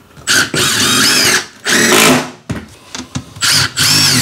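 Cordless drill-driver running in several short runs, about four, its motor pitch rising and falling as it drives screws through scrap vinyl plank pieces into the floor.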